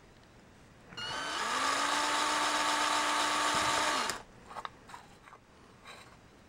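Cordless drill with a small 3/32-inch bit drilling a jet hole through the thin aluminum wall of a bottle-base stove: the motor starts about a second in, rises in pitch as it spins up, runs steadily for about three seconds, then stops. A few faint ticks follow.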